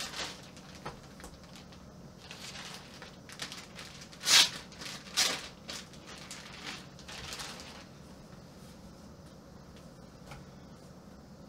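Clear plastic packaging bag crinkling and rustling as a knee support is pulled out and handled, in a string of short bursts, the loudest about four seconds in. After about eight seconds only faint fabric handling remains.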